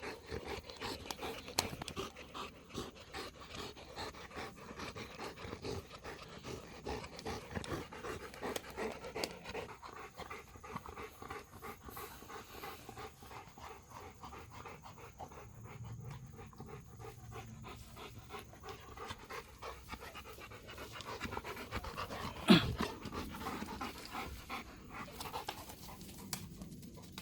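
A dog panting fast and hard after running, breath after breath, densest in the first third and easing later. A single sharp knock about two-thirds of the way through is the loudest sound.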